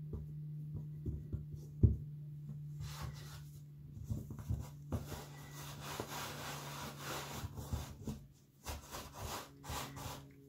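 Hands pressing, patting and rubbing soft stollen dough on a floured silicone baking mat: soft knocks with one sharper thump about two seconds in, and denser rubbing for a few seconds past the middle. A steady low hum runs underneath.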